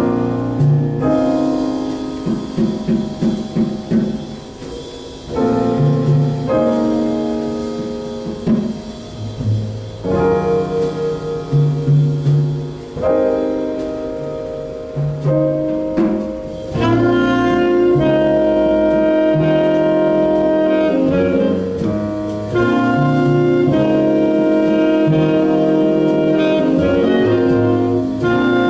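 Live jazz big band playing with saxophones to the fore, over a moving bass line. For the first half the band plays short, choppy chords; from about 17 seconds in it holds loud, sustained ensemble chords.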